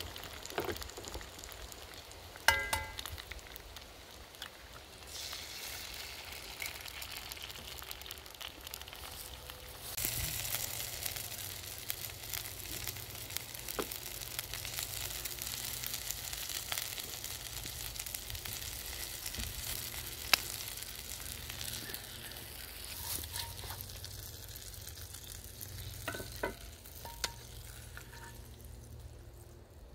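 An egg and sausage links sizzling as they fry in a cast-iron skillet. The sizzle grows louder about ten seconds in and dies down over the last few seconds. A few sharp, ringing clinks, the loudest about two and a half seconds in.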